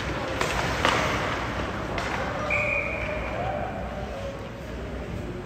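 Ice hockey play in an arena: sharp knocks of sticks and puck against each other and the boards, a short high whistle about two and a half seconds in, and distant players' voices.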